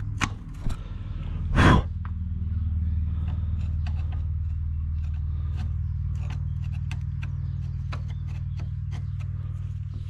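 Light metallic clicks and ticks of hand tools picking at the retaining clip on an ATV prop shaft joint, over a steady low hum. A short loud breathy burst comes about one and a half seconds in.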